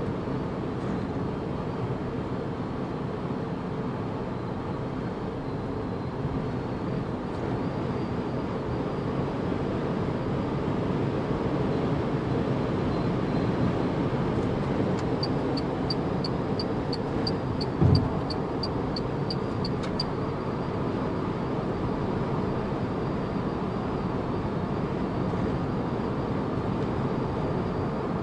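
Steady tyre and wind noise inside the cabin of a Renault Zoe electric car cruising at highway speed. A run of light, regular ticks, about three a second, lasts some five seconds past the middle, and a single thump comes about two-thirds of the way through.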